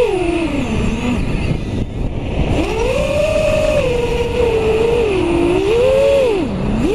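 Drone's electric motors and propellers whining, heard from the onboard camera, the pitch rising and falling repeatedly with the throttle and dipping lowest near the end.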